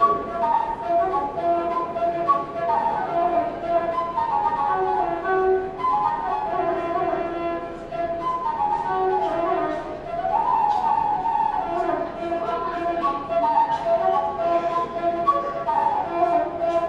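A busker playing an instrumental tune: a flowing melody line over a lower second part, with no pauses.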